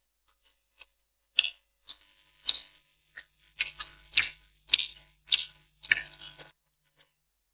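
Close-miked wet mouth sounds of spicy noodles being chewed: a few separate smacks, then from about three and a half seconds in a quicker run of about two a second.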